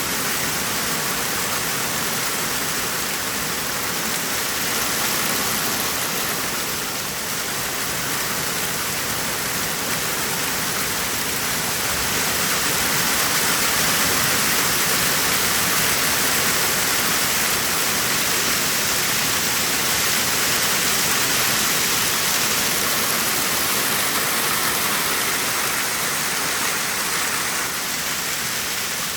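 Heavy rain mixed with hail pelting down in a steady, dense hiss, growing a little heavier about halfway through.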